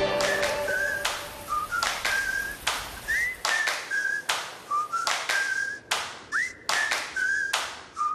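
Whistled melody in an instrumental break of a pop song: short, bouncy whistled notes with a few quick upward slides, over a steady percussive beat of about two strokes a second.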